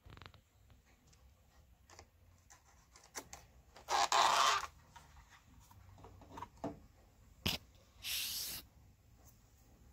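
Thin clear plastic snap-on lid of a takeout food container being pried open and lifted off: a loud crackling of the plastic midway, a sharp click later, then a brief crinkly rustle near the end, with small taps of handling between.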